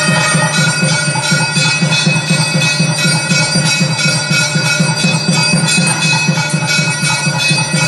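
Temple bells ringing rapidly and without a break over a fast, even drumbeat: the din that accompanies the aarti, the waving of the lamp before the deity.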